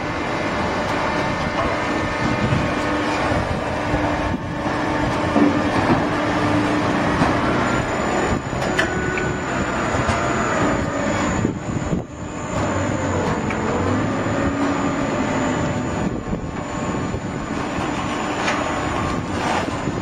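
Horizontal cardboard baling press running: a steady mechanical noise with faint whining tones.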